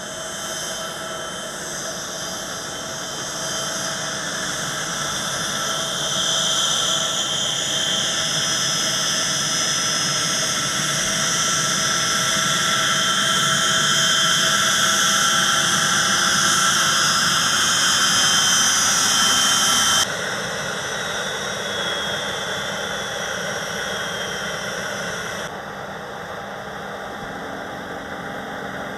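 Small business jet's rear-mounted turbofan engines running as it taxis: a steady rushing sound with a high whine that grows louder as the jet comes closer. About 20 seconds in the sound drops abruptly, and near the end it falls to a quieter steady hum.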